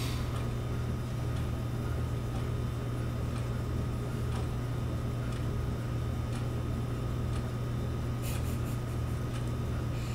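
A steady low hum with faint hiss and a few faint clicks, unchanging throughout.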